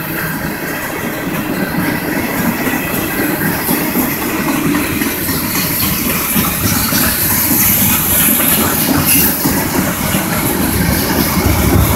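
Freight train of hopper and tank cars rolling past, the steady noise of its wheels on the rails growing gradually louder.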